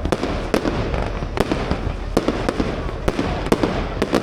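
Fireworks display going off: an irregular string of sharp bangs, two or three a second, over a constant crackling hiss.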